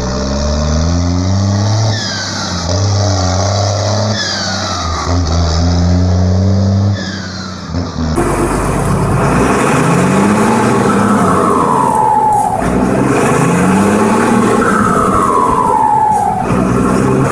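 Turbocharged diesel tractor engines revved again and again, each rev followed by a high, falling turbo whistle. About eight seconds in, a second engine takes over abruptly, with louder, longer whistles falling after each rev.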